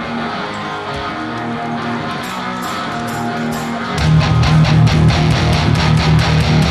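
Live hard rock band: an electric guitar plays sustained chords through Marshall amplifiers, then about four seconds in the full band comes in louder with steady drum and cymbal strokes and heavy bass.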